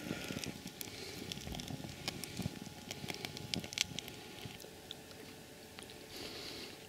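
Wax burner's open flames crackling under a cook pot of curry and rice, with many scattered small crackles over a light hiss.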